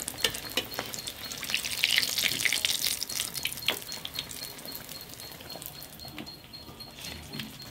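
Battered potato fritters deep-frying in hot oil in a kadhai, sizzling and crackling. The sizzle is loudest in the first half and grows quieter in the second half.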